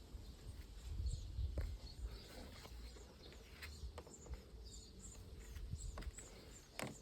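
Squeaks and creaks in a Volkswagen Passat B8 cabin: repeated short high chirps and scattered clicks over a low rumble.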